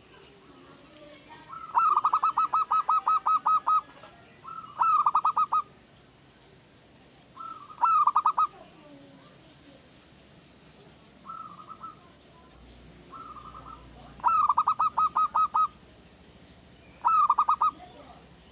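Male zebra dove (perkutut) cooing: about seven phrases, each a quick run of staccato coo notes, some long and some only a few notes. It is a local wild-caught bird just beginning to sing regularly.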